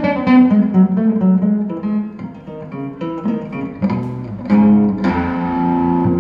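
Homemade long-necked fretted string instrument being plucked: a run of single picked notes, with a louder note about four and a half seconds in that rings on.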